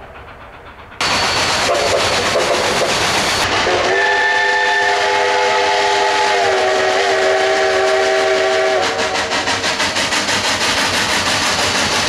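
Cumbres & Toltec K-36 steam locomotive #487 working hard uphill, its exhaust loud and then chuffing in an even beat near the end. Its five-chime Rio Grande whistle sounds one long chord of about five seconds, dipping slightly in pitch partway through; the tail of an earlier blast fades out in the first second.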